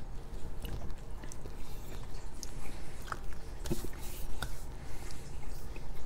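A person chewing a soft sugar-free marshmallow close to the microphone: quiet wet mouth sounds with small scattered clicks, a few sharper ones in the middle.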